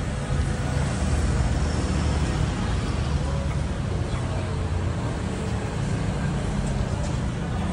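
Street traffic: motor vehicle engines running close by with a steady low rumble.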